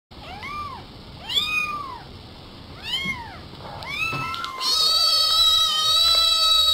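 Domestic cat meowing: three short rising-and-falling meows, then from about four and a half seconds one long, steady, louder high meow.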